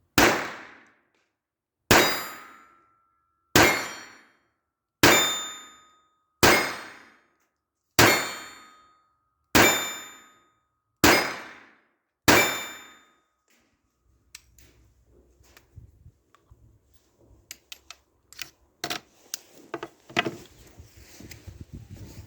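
Taurus PT-22 .22LR pistol firing CCI Suppressor cartridges: nine shots about one and a half seconds apart, each ringing out for about a second. After the last shot come scattered small clicks and rattles of handling.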